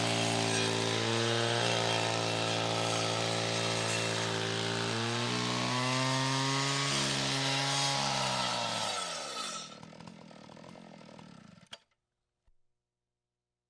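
Chainsaw engine running at a steady high speed, its pitch stepping slightly. About nine seconds in it is shut off and winds down with falling pitch, and a faint tail cuts off suddenly, followed by a small click.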